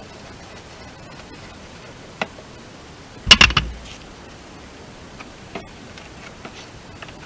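Hands working at a car's front wing around the side indicator: a sharp click about two seconds in, then a short loud clatter of knocks a second later, and a few faint ticks after, over a steady hiss.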